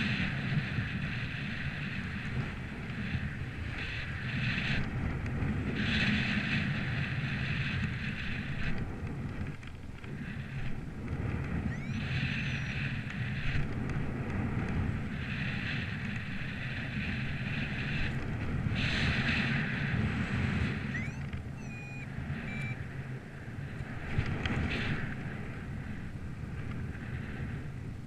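Gusty wind buffeting the microphone: a steady low rumble, with a hissing rush that swells and dies away every few seconds as the gusts come through.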